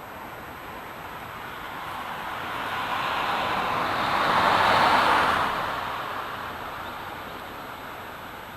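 A vehicle passes by: a smooth rush of noise that builds, peaks about five seconds in, and fades away.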